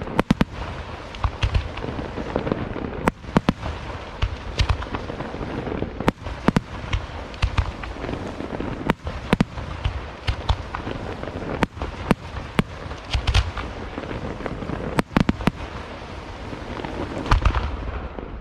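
Aerial fireworks display: a continuous dense crackle with many sharp bangs and deep booms going off irregularly, often several a second.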